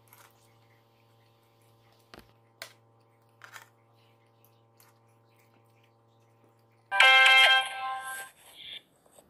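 A few faint clicks of a metal spoon against a plate, then about seven seconds in a short, loud chime-like music jingle that rings for under two seconds and fades: the video's outro sting.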